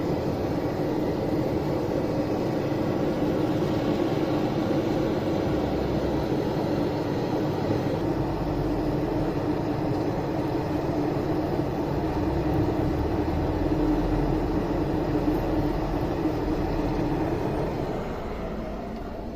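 A steady mechanical roar with a constant low hum, easing off near the end.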